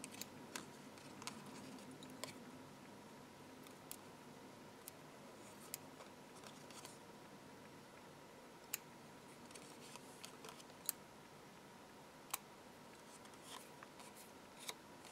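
Small pointed craft scissors snipping the tiny leftover tabs off a die-cut decoupage card piece: faint, sharp snips at irregular intervals, a second or two apart.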